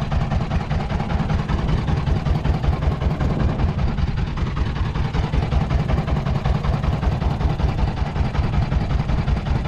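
Boat engine running steadily with a fast, even low throb.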